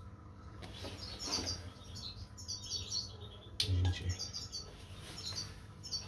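Lovebirds chirping in short high bursts of a few notes each, about five times, with a single knock a little past halfway.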